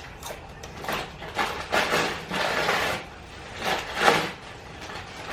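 Handling noises: several short, irregular scraping and knocking sounds of objects being moved, the sharpest about four seconds in.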